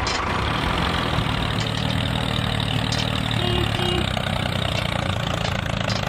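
Tractor engine running steadily at a low, even speed.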